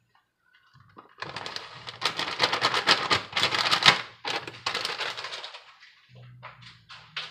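Plastic bag of shredded cheese crinkling and rustling as it is shaken out and handled: a dense crackle starting about a second in, loudest in the middle, and fading to a few separate crinkles near the end.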